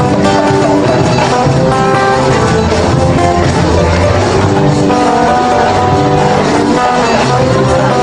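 Live band music with no singing: a plucked-string melody over bass and drums.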